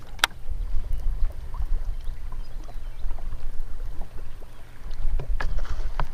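Wind buffeting the microphone in a steady low rumble while out in a boat on a choppy lake. A sharp click comes about a quarter second in, and a few fainter ticks near the end.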